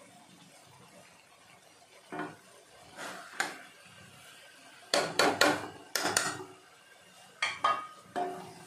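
Spatula scraping and knocking against a steel kadhai while stirring thick grated-carrot halwa. Quiet for the first two seconds, then a series of irregular clatters, busiest about five to six seconds in.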